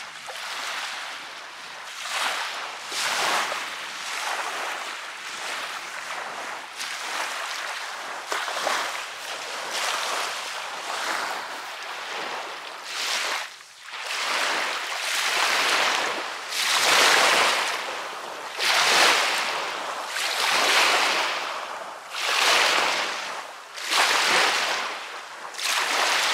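Small waves on a lake lapping against the shore, one wash every couple of seconds, growing louder in the second half.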